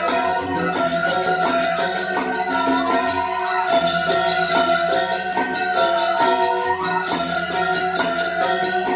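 Traditional Indonesian dance accompaniment: ensemble music with held pitched notes over a steady, repeating percussive rhythm.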